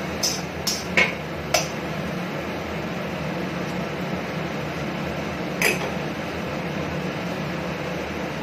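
Slotted metal spatula knocking and scraping against a stainless steel wok, four quick clacks in the first second and a half and one more about halfway through, over a steady hiss of mushrooms simmering in broth.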